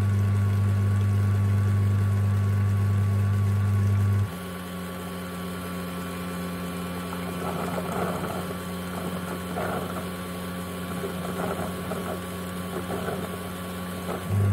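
Ecovacs X1 Omni docking station running its mop-wash cycle: a loud steady motor hum that stops about four seconds in, leaving a quieter hum with irregular water sloshing and splashing. The loud hum starts again near the end.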